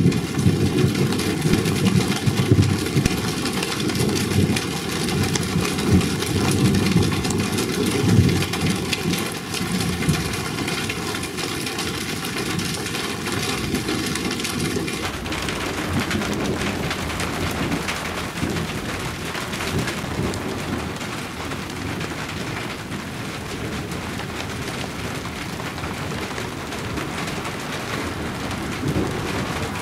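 Rain falling steadily, with low rumbling thunder under it during the first half. About halfway through, the rumble drops away, leaving an even hiss of rain.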